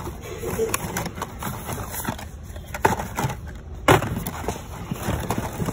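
Hot Wheels blister-card packages clacking and rustling against one another and the cardboard box as a hand rifles through them, with irregular sharp clicks, the loudest about four seconds in.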